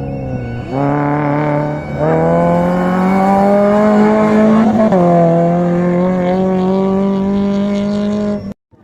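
A 4x4's engine revving hard and held at high revs, stepping up in pitch about a second in and again two seconds in, easing slightly about five seconds in, then cutting off abruptly near the end.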